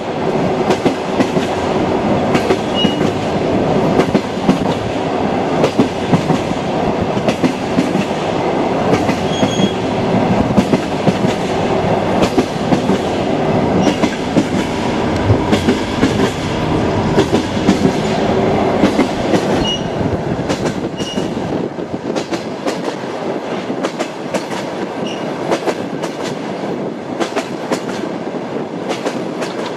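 Train wheels clicking over rail joints as a train runs along, over a steady rolling rumble. The deepest part of the rumble eases about two-thirds of the way through.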